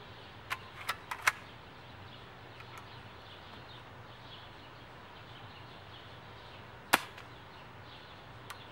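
Four quick sharp clicks in the first second and a half, then one louder sharp click about seven seconds in and a faint one near the end, over a faint steady background hum.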